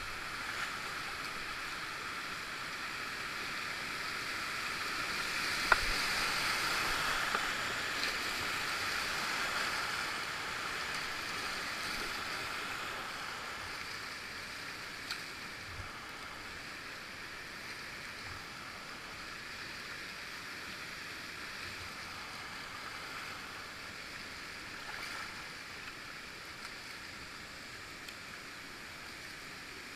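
Rushing river water heard from a kayak running whitewater, swelling louder for a few seconds about five seconds in and then easing off. A single sharp knock just before six seconds in.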